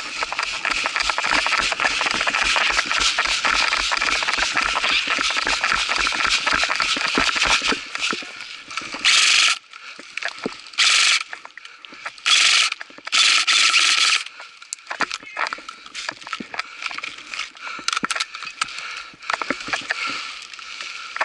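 Running footsteps with gear rattling, about four steps a second, for roughly eight seconds. Then four short bursts of airsoft rifle fire, full-auto, and scattered clicks and snaps.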